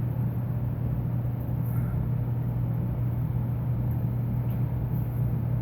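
Aquarium filter and powerhead motors running, a steady low hum with water-moving noise over it.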